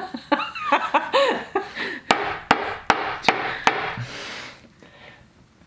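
Metal tin of painting oil handled and knocked: five sharp knocks in a steady rhythm, about two and a half a second, followed by a brief soft hiss that fades away.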